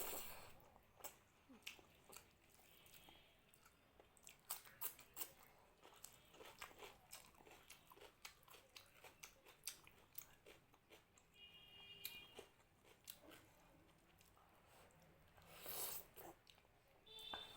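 Close-miked chewing of mutton curry and rice: soft wet mouth clicks and smacks in an uneven run. There are louder bites at the start and near the end.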